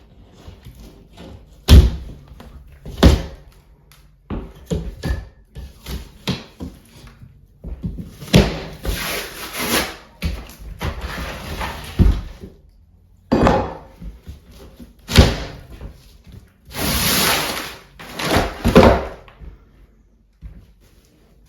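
Demolition work on a wooden cabin interior: a run of irregular knocks and thuds, with several longer rasping noises in between. The sharpest knocks come about two seconds in and again near the middle.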